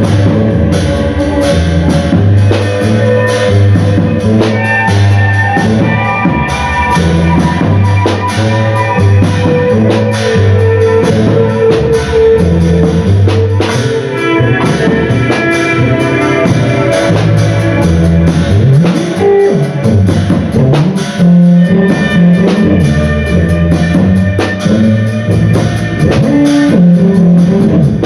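Live band playing: a drum kit keeps up steady hits under guitar and a moving low line.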